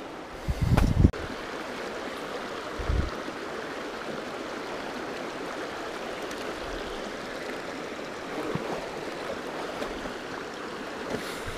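Small rocky mountain creek running over stones in shallow riffles, a steady rushing of water. There are two dull low bumps early on, about a second and three seconds in.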